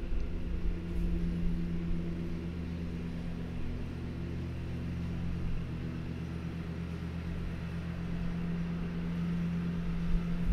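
Steady low mechanical hum, a few low tones held without change.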